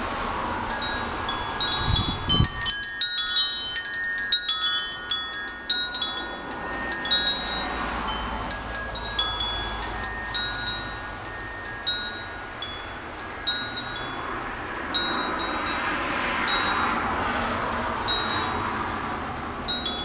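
Wind chime rung by gusting wind, many clear high tones tumbling over one another, busiest in the first few seconds and sparser later. Strong wind rushes throughout, buffeting the microphone about two seconds in and swelling toward the end.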